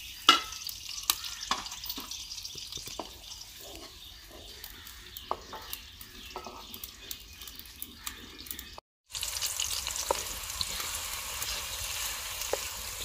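Chopped onions sizzling in hot oil in a metal karahi, stirred with a wooden spatula that clicks and knocks against the pan now and then. About nine seconds in, the sound drops out briefly and the sizzle comes back louder and brighter.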